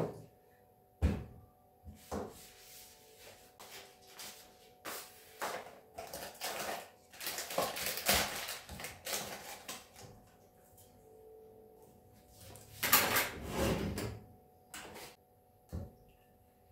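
Irregular knocks and clicks, like drawers, cupboards or doors being opened and shut, with two longer stretches of clattering handling about seven and thirteen seconds in, over a faint steady hum.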